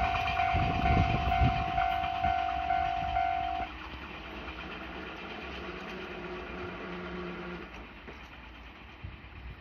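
Japanese level-crossing warning bell ringing in quick, even pulses while a passing train's rumble and wheel clatter fade away. The bell stops abruptly about three and a half seconds in. A low steady hum follows for about three seconds.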